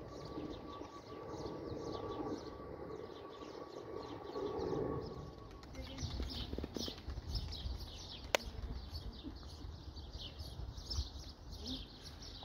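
Small birds chirping over and over, in short high calls. A faint steady tone runs under the first half, and there is a single sharp click a little past the middle.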